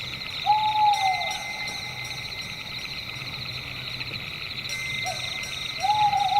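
Owl hooting twice, about five seconds apart, each hoot rising briefly then sliding down in pitch, over a steady chorus of night insects.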